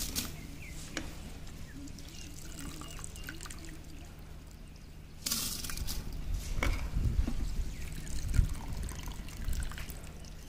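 Steaming biryani gravy in a large aluminium pot, with handfuls of cooked rice dropping into the liquid and pattering on it. The sound gets louder about five seconds in.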